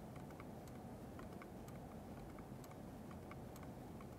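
Stirling engine with a foam displacer piston running while heated from below by hot water, its mechanism giving faint, regular clicks about three times a second.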